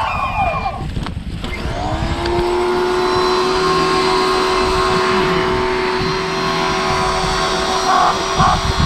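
Small Greenworks electric pressure washer: its motor winds down and stops about a second in, shutting off as the pressure builds, then starts again with a rising whine and settles into a steady hum. Wind rumbles on the microphone throughout.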